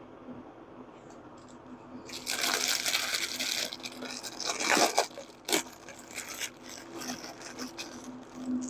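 Crinkling and rustling of a clear plastic bag as hands handle and unwrap a Bowie knife from it. The crinkling is loudest from about two seconds in for a second and a half, followed by lighter rustles and a few sharp clicks.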